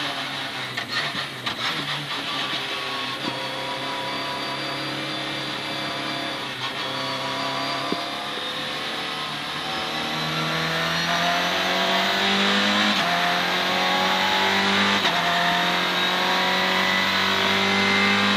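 In-cabin sound of a Citroën C2 R2 Max rally car's four-cylinder engine at speed on a circuit: the revs sit lower through a corner, then climb hard from about halfway, with two upshifts near the end where the pitch drops suddenly and climbs again.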